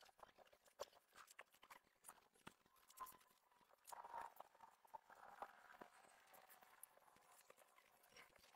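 Very faint scattered clicks and light metal knocks from hand tools working on a car's rear brake caliper, as a socket and ratchet are fitted to the caliper bolt.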